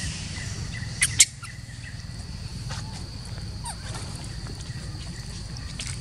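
Outdoor ambience: a steady high-pitched insect drone over a low rumble, with two sharp clicks about a second in.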